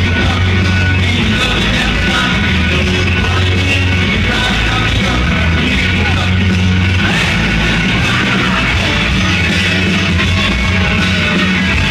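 Live rock band playing loud: electric guitar, keyboard, bass and drums, with a heavy, steady low end, heard from within the crowd.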